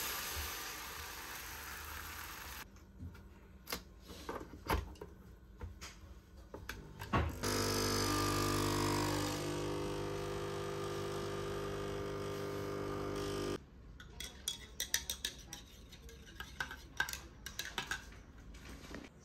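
Kitchen sounds: a steady hiss, then scattered clicks and clinks of dishes and utensils. Midway a small electric appliance hums steadily for about six seconds and then cuts off, followed by quick clattering of dishes.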